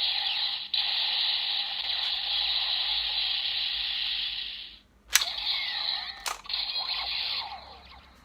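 Kamen Rider Ghost DX Ghost Driver toy belt playing its electronic finishing-move sound effect through its small speaker: a busy whooshing effect that cuts off about five seconds in, then a sharp click and shorter effects with a second click, fading out near the end.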